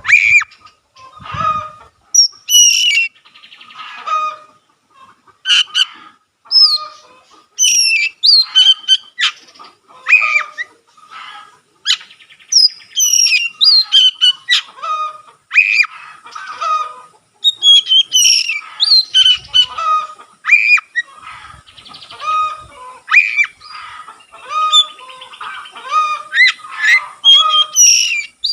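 Oriental magpie-robin in full song: a fast, nearly unbroken run of loud, varied whistles and chirps, sliding up and down, broken by short scratchy notes.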